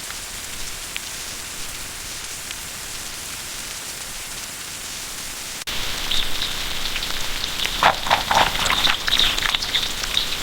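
Steady rain falling, which jumps louder with a sudden step about halfway through, with a dense run of short, sharp high-pitched sounds over it in the second half.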